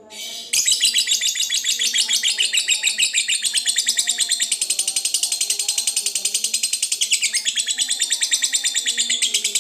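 Lovebird singing a long ngekek, the continuous trilling chatter prized in fighter lovebirds. It is a rapid, unbroken run of shrill repeated notes that starts about half a second in and goes on without a pause.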